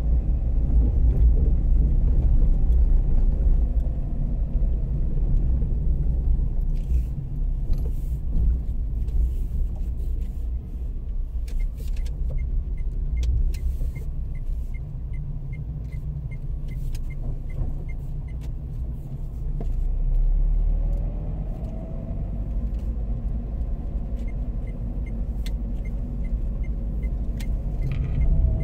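Car interior while driving: a steady low rumble of engine and road, with scattered light rattles and knocks. Twice, a run of evenly spaced light ticks, like a turn-signal indicator, about three a second: once around the middle and again near the end.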